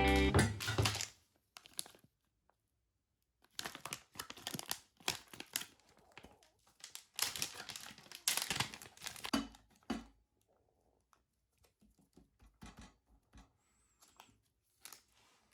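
Packaging being handled: crinkling and tearing in irregular bursts, then a few faint clicks near the end.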